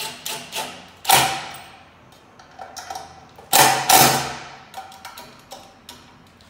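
Cordless power driver run in short bursts, driving screws into a ceiling fan's hub. There are a few quick bursts at the start, a strong one about a second in, and the longest and loudest about three and a half seconds in.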